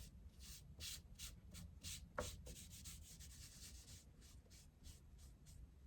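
Faint rag strokes wiping polyurethane onto the inside of a wooden box, a quick run of soft rubbing swipes, about three a second, thinning out near the end.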